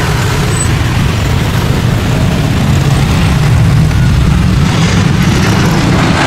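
Loud, steady rumble of a motor-vehicle engine, with a noisy hiss over it.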